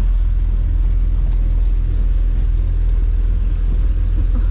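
Small fishing boat's motor running steadily under way, a continuous low drone.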